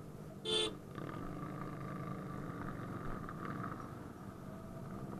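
A vehicle horn toots once, briefly, about half a second in, over a motorcycle engine running steadily on a rough dirt track.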